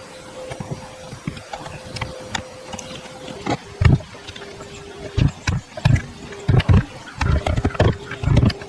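Irregular knocks and thumps of wood being worked and handled, sparse at first and heavier and more frequent in the second half, over a faint steady hum.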